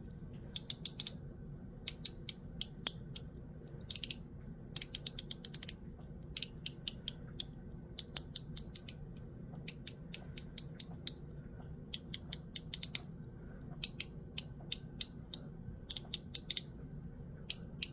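YEDC Mechanical Pig Slider, a metal fidget slider, being slid back and forth. Each slide gives a quick run of sharp detent clicks, strong and poppy, repeating every second or so.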